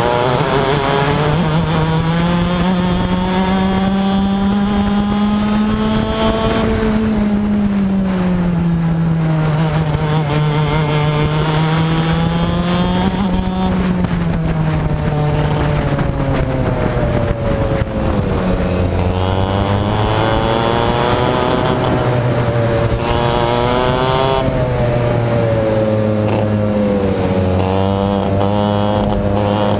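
Onboard sound of a two-stroke racing kart engine at full race pace. Its note rises through the revs on the straights and drops back into the corners several times. A second, lower engine note from karts running close by joins about two-thirds of the way through.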